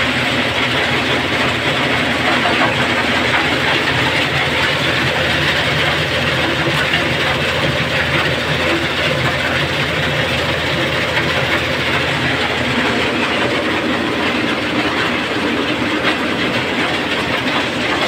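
Stone crusher plant machinery running: a loud, steady mechanical din with a low hum underneath, unbroken throughout.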